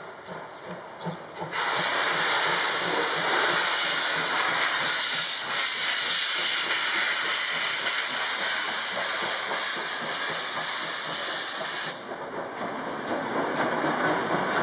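DRG Class 01 steam locomotive blowing steam from its open cylinder drain cocks as it works a train: a loud, steady hiss. The hiss starts suddenly after a quieter first second and a half and cuts off about twelve seconds in, leaving a softer hiss.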